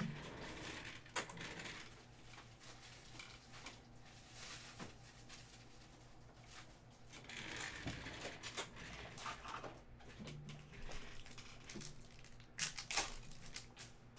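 Trading-card packs and cards handled by hand: wrapper crinkling and cards clicking and riffling as a stack is shuffled through, with a sharper run of clicks near the end.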